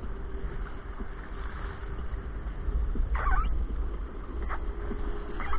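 Wind buffeting an action camera's microphone and sea water sloshing as a kayak is paddled through small waves, with three brief, higher sounds in the second half.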